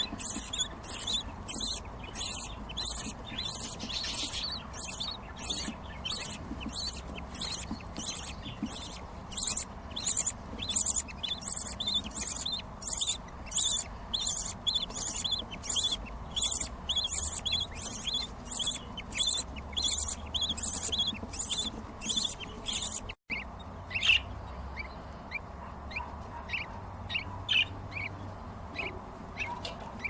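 Budgerigar chicks begging with rapid, rhythmic high cheeps, about two to three a second, as an adult feeds them in the nest. Near the end the cheeps become sparser and softer after a brief break.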